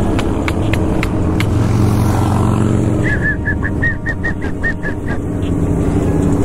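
Motorcycle engine running steadily under way, with wind noise on the rider's camera. A few sharp clicks come in the first second and a half, and from about three seconds in a run of about nine short, high chirps lasts some two seconds.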